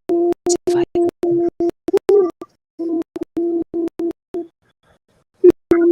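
A steady held tone at one pitch, chopped into short choppy pieces with sharp clicks between them and a longer break about halfway through, like a tone stuttering through a poor online audio stream.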